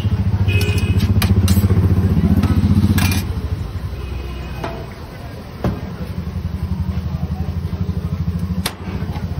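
An engine idling with a steady low chugging that eases off for a couple of seconds about a third of the way in and then picks up again, with a few sharp clicks and knocks over it.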